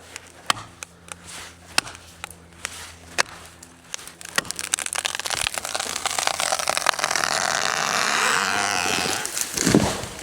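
A tree falling: a few sharp knocks, then a crackling rush of wood and branches that builds for several seconds and ends in a heavy thud as the trunk hits the ground.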